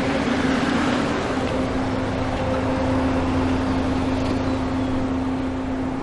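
A car engine running with street traffic noise, a steady low hum held throughout.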